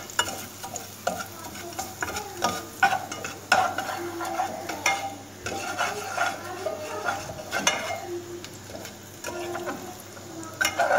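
Minced garlic sizzling in a little oil in an aluminium saucepan, being lightly browned, while a plastic spatula stirs and scrapes around the pan with frequent sharp clicks.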